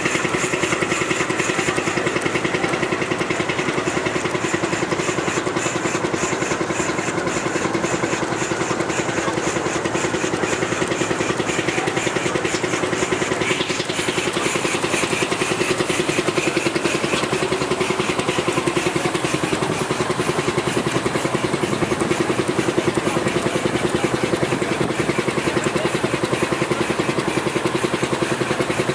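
Portable steam engine running at a steady speed, with a rapid, even mechanical beat.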